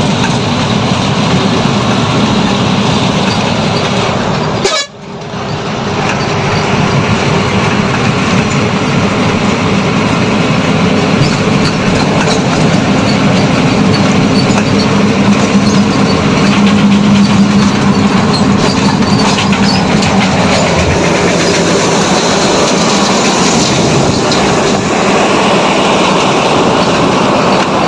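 Heavy truck engine and road noise from inside the cab at highway speed, passing close alongside another truck: a loud, steady rumble that drops out briefly about five seconds in.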